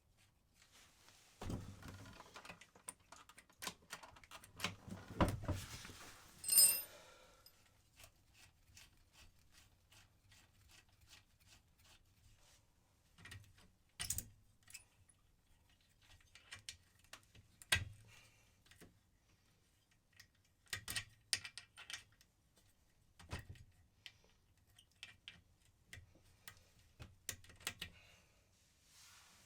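Hand tools working screws on a motorcycle engine casing: scattered metallic clicks and clinks, busiest in the first few seconds, with one brief ringing clink about six or seven seconds in.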